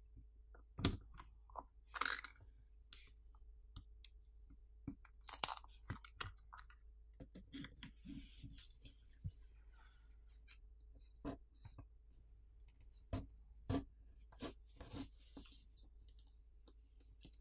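Faint scattered clicks, crackles and short scrapes of a plastic pry pick being worked around the edge of a phone's plastic backplate, parting the heat-softened adhesive underneath.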